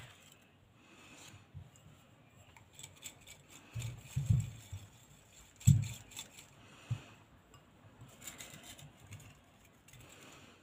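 Folded paper strips rattling and rustling in a small ceramic bowl shaken between cupped hands, with a few dull knocks of the bowl against a wooden table, the loudest about four and six seconds in.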